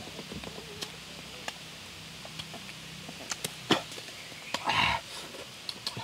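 Cooked crab being eaten by hand: scattered small clicks and cracks of crab shell breaking. One sharp crack comes a little before four seconds, and a short louder burst of eating noise follows about a second later.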